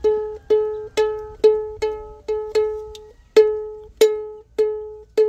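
Small four-string toy ukulele strummed over and over, about two strums a second, each ringing the same open chord and dying away before the next.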